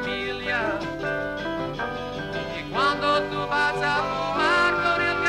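Live country-folk band music: acoustic guitar strumming under a singer's long held notes, which slide up in pitch about three seconds in and again near the end.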